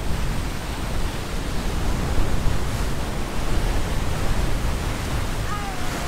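Ocean surf washing on the beach, a steady rush of noise, with wind rumbling on the microphone.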